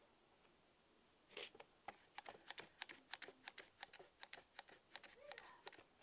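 Irwin Quick-Grip bar clamp being tightened by squeezing its trigger: a faint run of ratcheting clicks, about four a second, starting a little over a second in.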